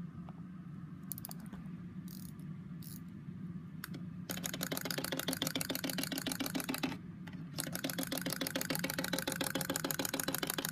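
Clockwork mechanism of a small wind-up bug toy running: a fast, even clicking buzz that starts about four seconds in, stops briefly about seven seconds in, then starts again. A few single clicks come before it.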